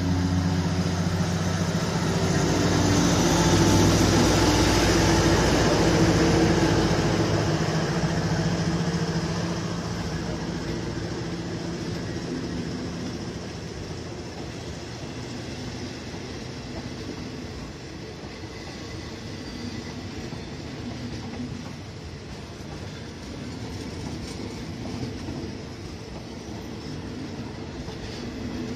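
A State Railway of Thailand diesel locomotive passes close by with its engine humming, loudest in the first several seconds and fading by about ten seconds in. A long train of passenger coaches follows it, rolling past with steady wheel and rail noise.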